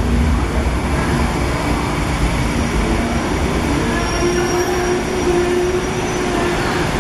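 Kuala Lumpur LRT Ampang Line train pulling into a station with a steady rolling rumble. A thin squeal joins about halfway through as it slows and stops near the end.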